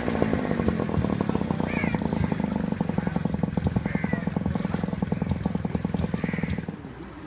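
A small engine running with a rapid, even pulsing, starting abruptly and fading away near the end, with a few short bird chirps over it.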